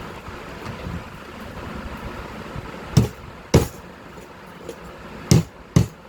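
Four sharp knocks of a hand tool striking machine parts during reassembly, in two pairs about half a second apart, over a low steady background noise.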